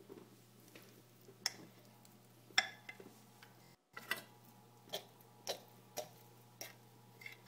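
Metal fork clinking and scraping against a ceramic mixing bowl as thick bannock dough is scooped out: a string of sharp, faint clinks, two in the first half and then about one every half second in the second half.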